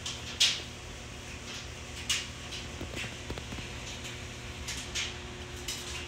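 Handling noise: four short rustles or scrapes, the first the loudest, over a steady low hum.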